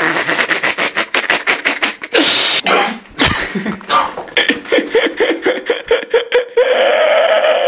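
A young man laughing hard, close into a handheld microphone, in quick pulsing bursts broken by breathy gasps.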